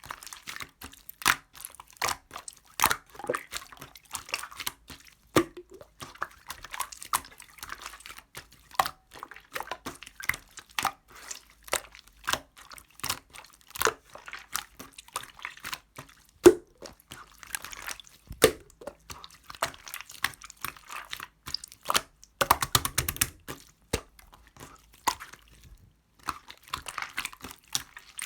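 Clear slime being squished and poked by hand: irregular wet clicks, pops and crackles as air pockets burst, in loose clusters with short pauses.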